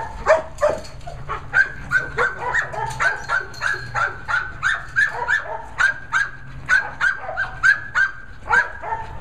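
A dog barking over and over in an even, rapid rhythm, about three short barks a second.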